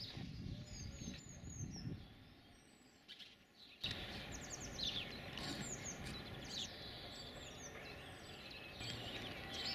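Several songbirds chirping and singing, quick short calls overlapping one another. A low rumble lies under the first two seconds. The sound changes abruptly about four seconds in, and from there the birdsong is denser and louder.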